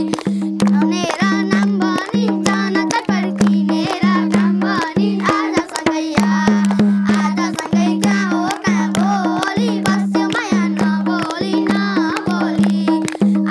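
A boy singing a Nepali folk song to his own madal drum, which keeps a steady beat, with many hands clapping along in time.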